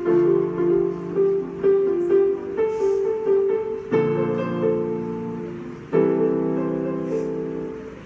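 Electronic keyboard played in a piano voice: a melody of short repeated notes over held chords. The chords change about four seconds in and again about two seconds later.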